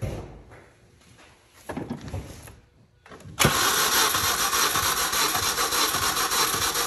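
Supercharged four-cylinder engine of a 2006 Mini Cooper S being cranked on its starter for a compression test. The cranking comes in suddenly about three and a half seconds in and runs on with an even pulse, after some quiet knocks and handling noises.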